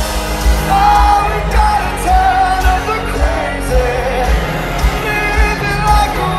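Live pop-rock band performance: a male lead singer sings over drums and a full band, with a steady beat.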